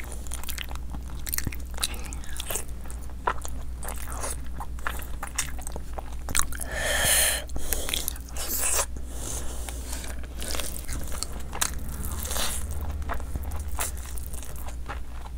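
Close-miked mouth sounds of a person eating rice, curry and fish by hand: wet chewing and smacking with many small clicks and crunches. One longer, louder wet sound comes about seven seconds in.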